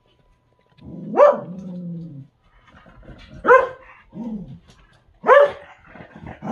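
Dogs barking at each other in play: four short barks about a second apart, three of them loud, the first trailing off in a lower drawn-out tone.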